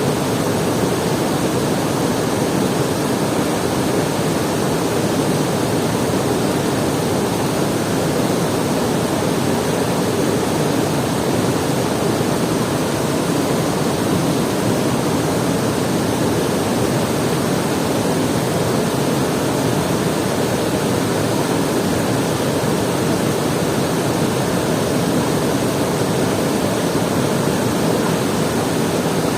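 Water rushing steadily, a constant roar with no distinct splashes or breaks.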